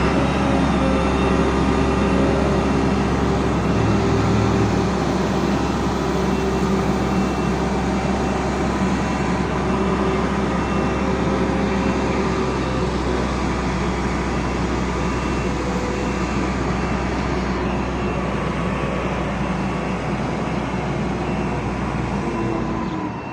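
Large vehicle engine running steadily, a deep rumble with a held pitch, dropping away near the end.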